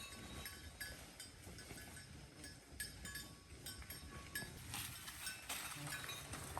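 Cattle eating hay: irregular crunching and chewing clicks, with a spell of rustling hay about two-thirds of the way through.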